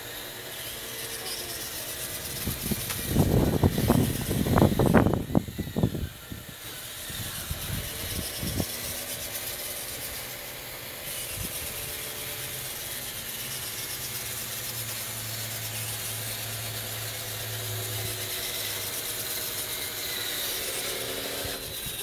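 Radio-controlled hydraulic bulldozer's electric motors and hydraulic pump whirring steadily as it tracks over ripped turf. A burst of loud knocks and clatter comes about three to six seconds in.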